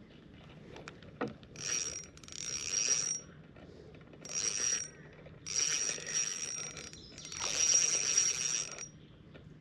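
Fishing reel being cranked in short bursts, its gears giving a whirring whine each turn of the handle as line is retrieved; a small knock about a second in.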